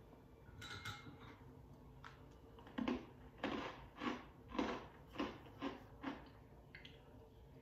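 A person chewing a snack close to the microphone: about seven soft chewing strokes, roughly two a second, from about three seconds in.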